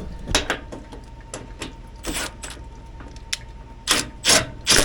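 A series of short clatters, knocks and scrapes from hands working on metal parts inside an air handler, over a steady low hum with a faint steady tone. The strikes come irregularly, about ten of them, with the loudest group near the end.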